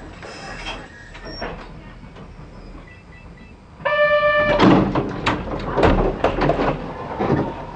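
Inside the cab of a Kobe Electric Railway 3000 series train standing at a station: a low hum, then about four seconds in a buzzer tone sounds for under a second. After it comes a louder run of knocks and clatter.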